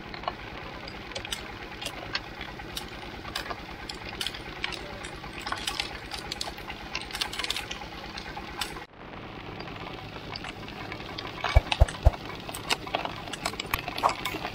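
Iron roller sugarcane crusher running with a fast, steady mechanical rhythm, while the cane stalks fed between its rollers crack and crunch in irregular sharp clicks. Two heavy thumps come near the end.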